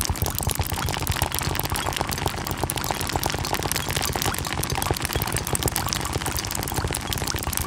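A dense, even patter built from a great many water-drop impact sounds layered together, so that the separate drips merge into a sound like steady rain.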